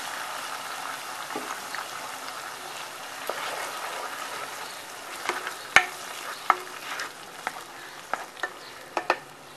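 Tomato-onion gravy sizzling in hot oil in a nonstick pan while a spatula stirs it, with several sharp taps and scrapes of the spatula against the pan in the second half.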